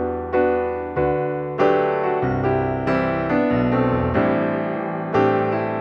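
Background piano music: a calm melody of struck notes and chords, each fading after it is struck, a new note or chord about every half second to second.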